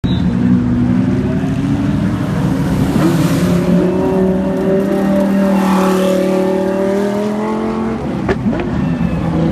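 Lamborghini Huracán race car's V10 engine running at high revs as the car approaches and passes close by. About eight seconds in its pitch drops with a sharp crack, followed by short rising revs.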